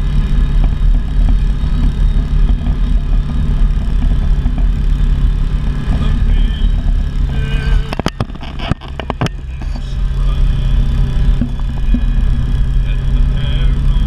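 Can-Am Maverick XMR side-by-side's engine running steadily at low speed while driving along a rocky creek bed. About eight seconds in, the engine sound drops briefly and a quick cluster of knocks is heard, then the steady running returns.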